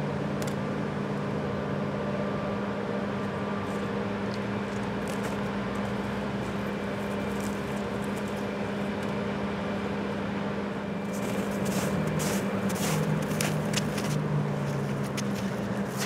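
Steady low background hum, like distant road traffic, with a run of crackling clicks over the last five seconds.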